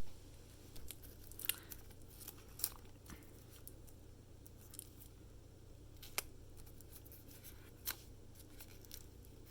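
Plastic shrink-wrap being opened on a Blu-ray steelbook case: scattered short, sharp snips and crinkles, about one every second or two.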